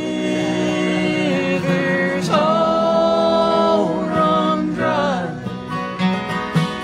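Bluegrass band playing a slow country song: acoustic guitars and a banjo under voices singing long held notes together.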